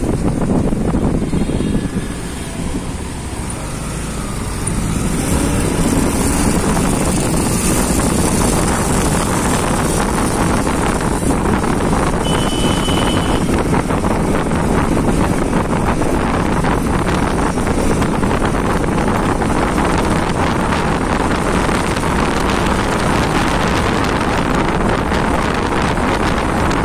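Wind rushing over the microphone of a moving motorcycle, mixed with engine and road noise; it eases off about two seconds in and builds again after about five seconds. A short high tone sounds about halfway through.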